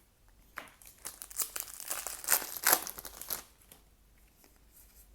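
A foil trading-card booster pack being torn open and crinkled by hand, a dense crackling rustle that swells to its loudest in the middle and stops about three and a half seconds in.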